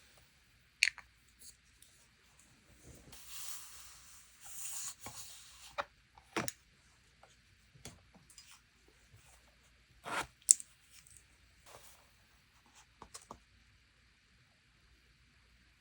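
Paper crafting at a desk: scattered light taps and clicks of paper and stationery being handled, with a few seconds of paper rustling a few seconds in and a couple of sharper taps about ten seconds in.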